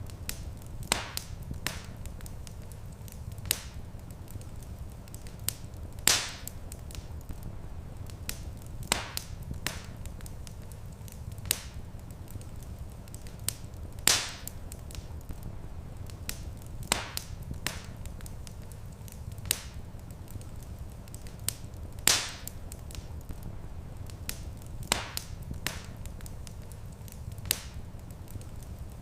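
Wood fire crackling: scattered sharp pops and snaps, with a louder pop about every eight seconds, over a steady low rumble. The same pattern of pops repeats every eight seconds, as in a looped recording.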